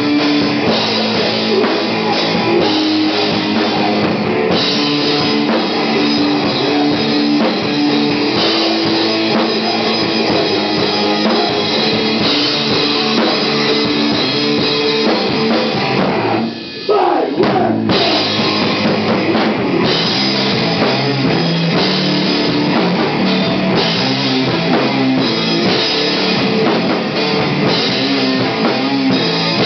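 Stoner rock band playing live and loud, with drum kit and guitars. About sixteen seconds in, the band briefly drops out while a single tone glides down in pitch, then comes back in.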